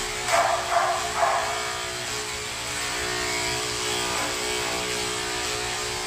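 Electric dog grooming clippers running with a steady hum while clipping a dog's coat. Three short louder sounds come in the first second or so.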